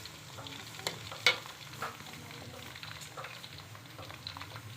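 Potatoes frying in hot oil, a steady crackling sizzle, with a few sharp clicks, the loudest about a second in.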